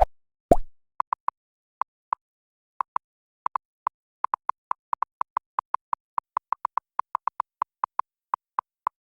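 Two quick plop sound effects, then a long string of dozens of short, identical electronic beeps at an uneven, chattering pace, like a text-typing blip effect from an editing sound pack.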